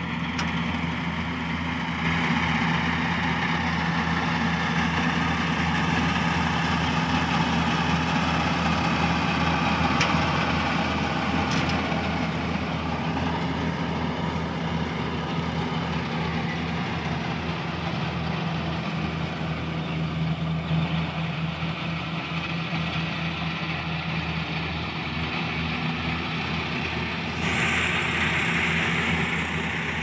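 Daedong combine harvester's diesel engine running steadily while it harvests rice, a constant low engine hum with a mechanical hiss from the working machinery over it.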